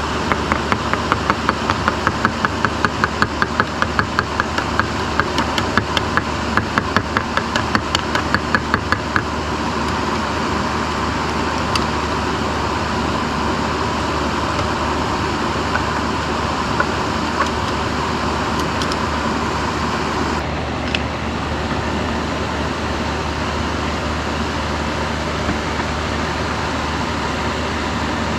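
A stirrer clinks against the side of a glass measuring cup about four times a second while liquid plastisol is stirred, for roughly the first nine seconds; a few single clicks follow. Underneath runs a steady mechanical hum, with a faint whine that stops about two-thirds of the way through.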